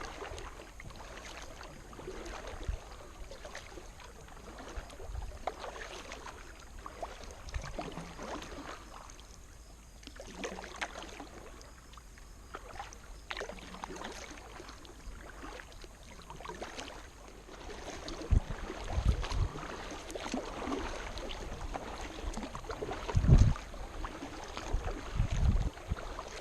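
Kayak paddling: the paddle blades dip and splash in the water stroke after stroke, with drips. In the second half come a few louder low thumps.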